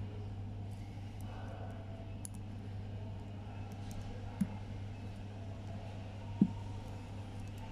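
Faint clicks and handling noise from a small screwdriver turning the caseback screws of a steel Casio Edifice watch, with two soft knocks, one past halfway and a louder one near the end, over a steady low hum.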